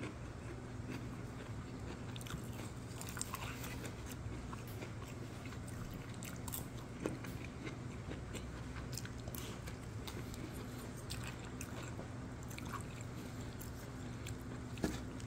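A person chewing and biting into a grilled chicken leg bento close to the microphone, with scattered small clicks and two sharper ones about seven seconds in and near the end, over a steady low hum.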